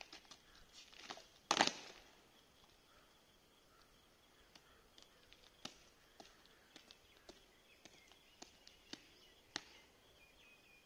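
A sharp thump about a second and a half in, followed by faint, scattered clicks and taps.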